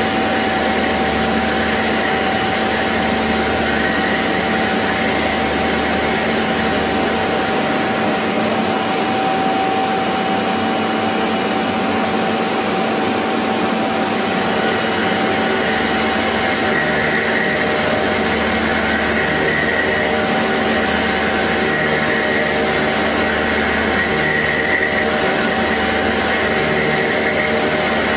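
CNC machine tools running: a steady mechanical noise with a constant whine held on one pitch.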